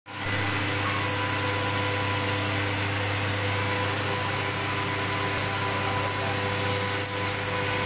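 Puffed corn snack production machinery running steadily: a constant motor hum with a few steady whining tones and a high hiss.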